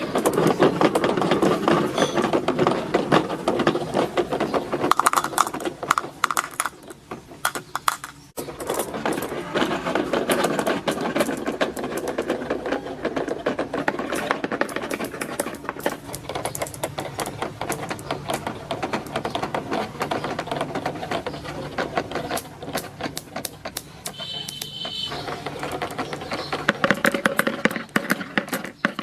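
Many marbles rolling and clattering down a plastic marble-run track: a dense, continuous rattle of small clicks that drops away briefly about eight seconds in. A short high ringing tone sounds near the end.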